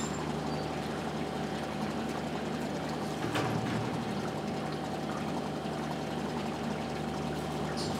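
Machinery running with a steady hum, and a single knock about three and a half seconds in.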